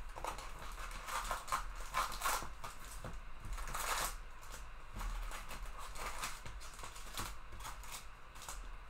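Wrapped trading-card packs being pulled and slid out of a cardboard hobby box by hand: irregular crinkling and rustling of the pack wrappers, with light scraping against the cardboard.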